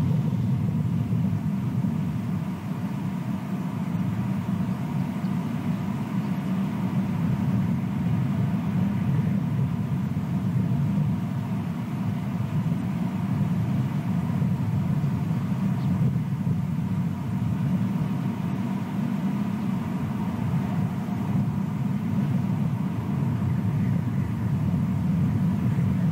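Steady low rumble of outdoor background noise picked up by the nest-cam microphone, even throughout with no distinct calls or knocks.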